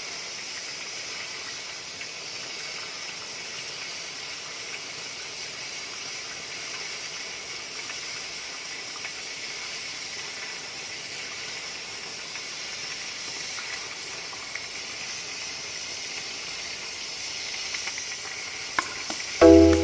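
CNC oxy-fuel cutting torch hissing steadily as it burns through steel plate. Music comes in just before the end.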